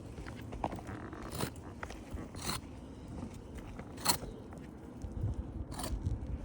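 About four short scrapes and scuffs, spread a second or so apart. A low rumble, like wind on the microphone, builds near the end.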